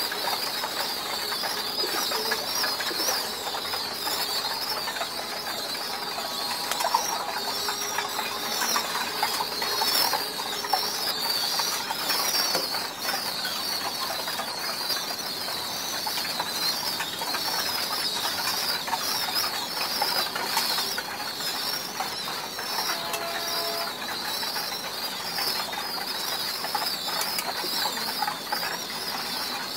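Caged pigeons and their squabs: a dense, high-pitched chirping that goes on without a break, with wing flaps, rustling and small clicks mixed in.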